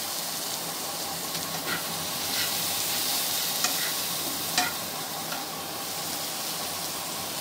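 Spice paste of onion, garlic, cumin, turmeric and green chillies sizzling in oil in a frying pan while a wooden spatula stirs it, the masala frying down. A few short clicks of the spatula against the pan break the steady sizzle.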